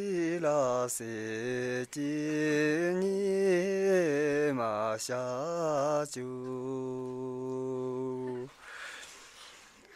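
A single low voice singing unaccompanied in a slow, wavering chant-like melody, broken by short pauses between phrases. About six seconds in it holds one long steady note for two seconds or so, then falls away to a faint breathy hush near the end.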